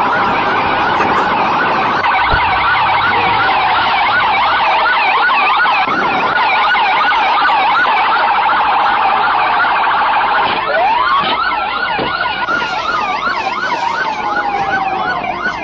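Police car sirens on a chase: a fast, repeating yelp throughout, joined about ten seconds in by a slower rising-and-falling wail.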